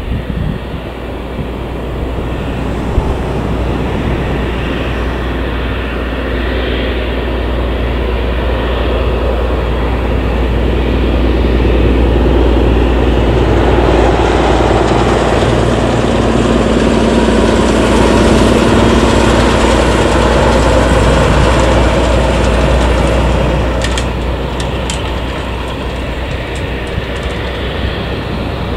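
Embraer E190 jet's two General Electric CF34 turbofan engines running at taxi power as the airliner taxis by, growing louder toward the middle and easing off a few seconds before the end.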